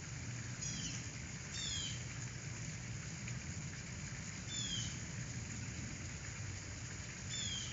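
Four short, high animal calls, each sliding down in pitch, spaced a second or more apart, over a steady low hum.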